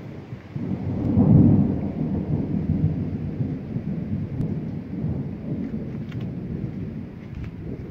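Thunder rumbling, loudest about a second in, then a long low roll that keeps going.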